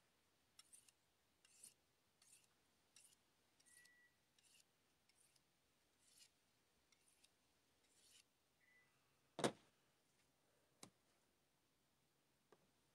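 Fillet knife being sharpened on a ceramic stone: faint, quick strokes of the blade across the stone, about one every two-thirds of a second, sharpening an edge dulled by the fish's tough skin. About nine seconds in comes one louder sharp knock, followed by a couple of light clicks.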